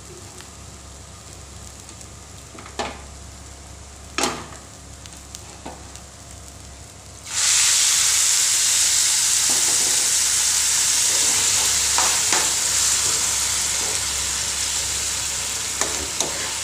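Rice sizzling faintly in ghee in a nonstick pan, with a few spoon scrapes. About seven seconds in, hot water is poured onto the hot rice and the pan breaks into a loud, steady sizzle that slowly eases as the water comes to the boil.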